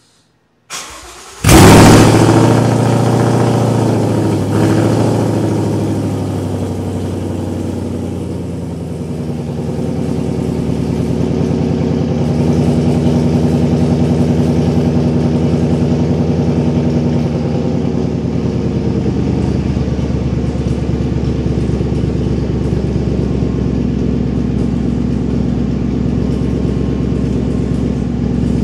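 2015 Ford Mustang GT's 5.0-litre V8 cold-starting through an MBRP Street cat-back exhaust with the catalytic converters deleted. A brief crank, a loud flare as it catches about a second and a half in, then a steady, loud cold idle.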